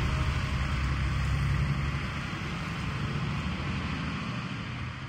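Heavy-haul truck's diesel engine running as it tows a multi-axle low-loader away, a low, steady sound that grows gradually fainter.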